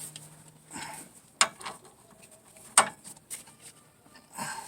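A few sharp metallic clicks, spaced a second or more apart, from a hand ratchet tightening bolts by feel rather than with a torque wrench, with soft rustling of tools and parts between.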